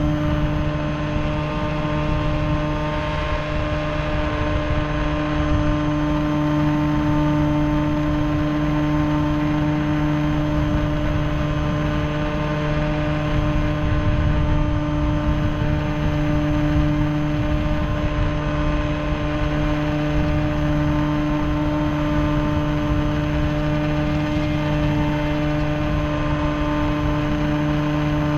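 Radio-controlled model plane's motor and propeller running at a steady pitch in flight, heard from a camera mounted on the plane, with wind rushing over the microphone.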